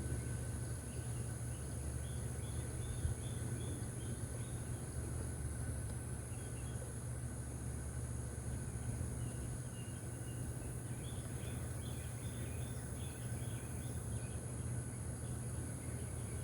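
Steady outdoor ambience: a constant low hum under a thin, steady high insect drone, with short runs of bird chirps twice.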